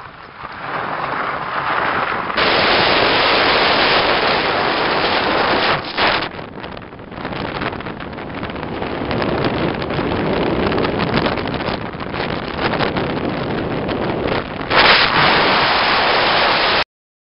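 Heavy wind buffeting the microphone of a camera held out of a moving car's window, over the car driving along a gravel road. The noise is loud and steady, dips briefly a few times, and cuts off suddenly near the end.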